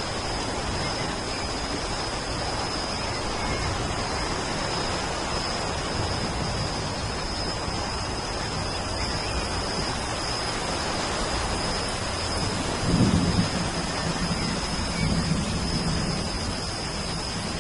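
Steady rain falling, with low rolls of thunder; the loudest comes about two-thirds of the way through, followed by another shortly after. A thin, steady high whine runs under the rain.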